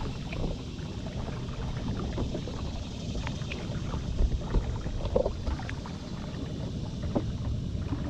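Small boat on the water: a steady low rumble with a few light knocks, about four to five seconds in and again just after seven seconds.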